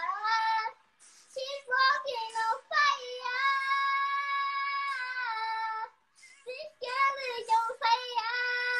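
A ten-year-old girl singing unaccompanied, holding long notes in phrases separated by short breaths, about a second in and again near six seconds.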